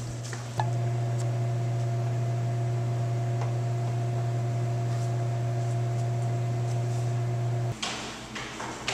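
A steady low hum with a fainter higher tone above it, starting about half a second in and cutting off abruptly near the end.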